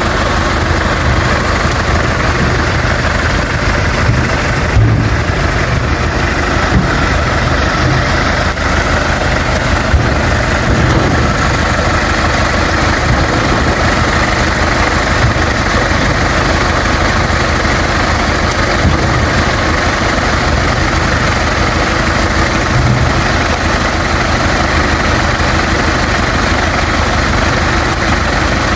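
A vehicle engine idling steadily, with a few short knocks as oil palm fruit bunches are thrown into the steel dump-truck body.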